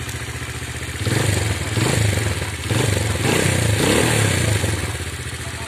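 Dayang Runner Bullet 100cc motorcycle's single-cylinder engine idling, then revved in three blips of the throttle starting about a second in, settling back to idle near the end.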